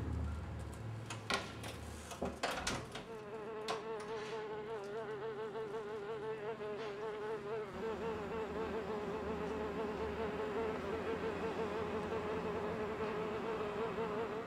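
A fly buzzing: a steady, wavering drone that sets in about three seconds in and holds, after a few sharp clicks.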